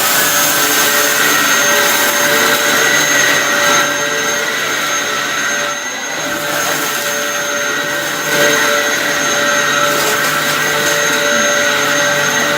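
Vacuum running steadily with a high whine, a little quieter for a few seconds about halfway through.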